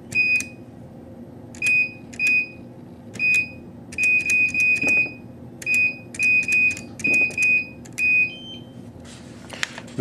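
Camden CM-120 series access-control keypad beeping once for each key press as a PIN programming command is entered. About a dozen short, identical beeps come in irregular groups, including two quick runs of four for a repeated four-digit code. A single, slightly higher tone follows just after the last press.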